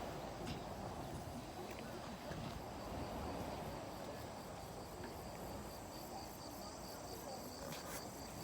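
Insects chirping steadily in a high, evenly pulsed trill, several pulses a second, over a faint low background noise.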